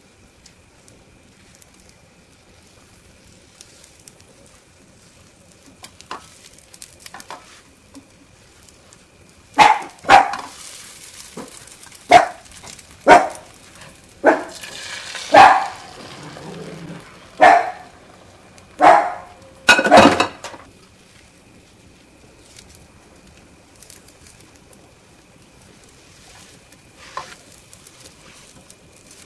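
A dog barking about ten times, in short loud barks from about ten seconds in to about twenty seconds in, over the faint sizzle of an egg omelette frying in a pan.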